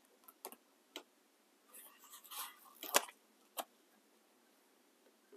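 Faint handling of a paper sticker sheet: a short rustle as a sticker is peeled off its backing about two seconds in, with a few light clicks and taps, the sharpest about three seconds in.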